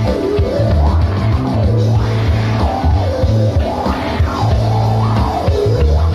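Jazz-fusion band playing live: a loud, steady bass riff under a lead line that swoops up and down in pitch several times.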